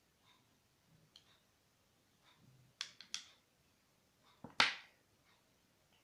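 A metal spoon clicking and scraping against a small glass jar while powdered eyeshadow is scooped out. The clicks come a few at a time, with a pair near the middle and the sharpest about two-thirds of the way in.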